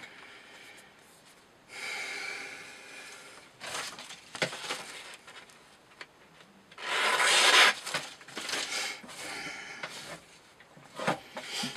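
Knife blade slicing through rope in several rasping drawing strokes, the loudest about seven seconds in, in a cut test of the edge's sharpness.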